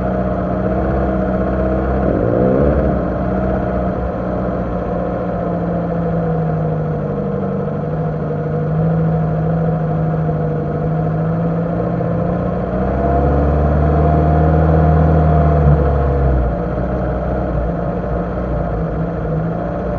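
Lada Niva's engine running at low revs as the car moves slowly, its pitch drifting up and down. About two-thirds of the way through it pulls harder and louder for a few seconds, then eases back.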